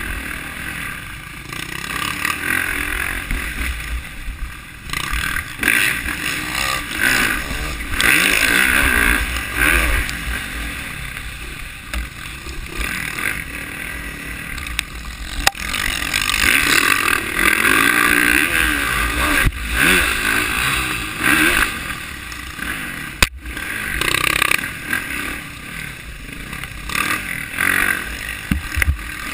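Off-road dirt bike engine heard from the rider's onboard camera, revving up and falling back over and over with the throttle. A few sharp knocks come from the rough ground.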